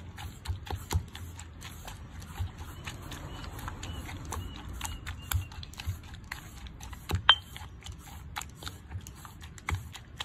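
Stone pestle pounding chilli curry paste in a stone mortar: steady repeated strikes about three a second, with one harder knock about seven seconds in.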